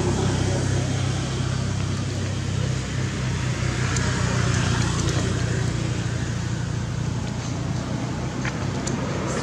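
A steady low motor hum under constant background noise.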